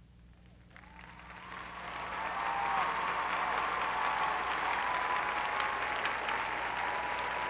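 Large indoor crowd applauding: the clapping starts about a second in, swells over the next two seconds and then holds steady, with some held cheering on top.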